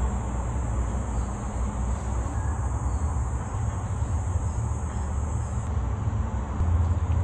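Steady background hum with a high-pitched even buzz that drops out near the end; soft knife cuts on the wooden board are not distinctly heard.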